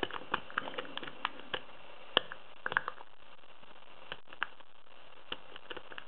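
Lock pick clicking and scraping against the pins inside an AZBE pin-tumbler lock cylinder as it is picked under tension: irregular small sharp clicks, thickest in the first three seconds and sparser later.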